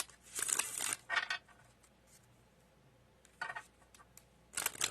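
Tarot cards being handled and shuffled: several short rustling, slapping bursts of card stock, with a quiet gap of about two seconds in the middle.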